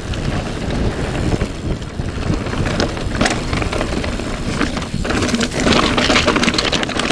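Mountain bike descending a rough, rocky trail at speed: steady wind rush over the microphone with scattered knocks and rattles of the bike over rocks.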